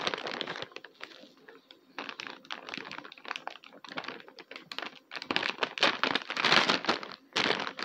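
Thin plastic toy bag crinkling and crackling as it is handled and opened, in irregular clicks that grow busier past the middle.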